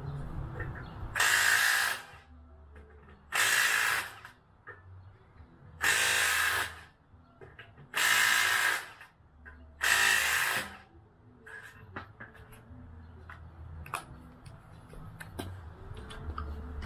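Power drill running in five short bursts, about two seconds apart, each lasting just under a second.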